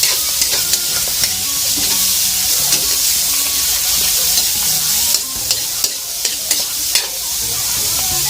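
Boiled, shelled mussels frying with onion and garlic in oil, with a steady sizzle as they are stirred in the pan. Sharp clicks of the stirring utensil against the pan come through, most often about five to seven seconds in.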